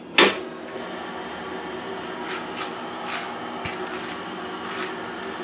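A sharp clunk about a fifth of a second in as a 1968 Hardinge TFB toolroom lathe is switched on, then the lathe's drive running with a steady mechanical hum and a few light ticks.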